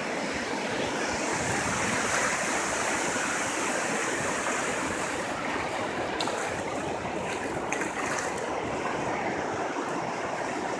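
Ocean surf washing steadily onto the beach, swelling over the first few seconds, with a few faint ticks later on.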